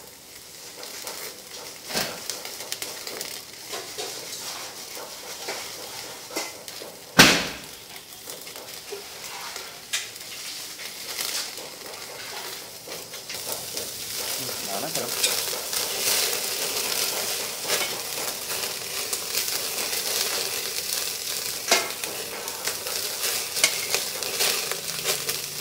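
Meat sizzling on a wire grill rack over a clay charcoal stove, with scattered sharp pops and crackles, the loudest about seven seconds in. The sizzle grows louder in the second half.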